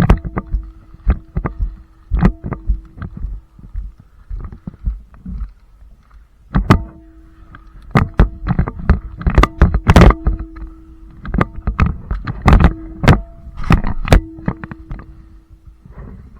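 Irregular knocks and thumps from a player moving with gear during an airsoft game, denser in the second half. A steady hum runs under them and drops out twice.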